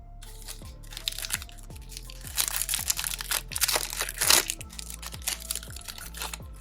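Foil trading-card pack wrapper crinkling and tearing, a run of crackles loudest in the middle, over background music.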